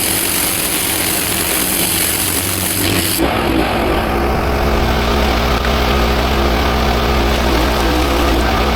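Pressure washer running with the hiss of its high-pressure spray on the paving; about three seconds in the spray hiss cuts off abruptly, leaving the machine's steady low engine hum.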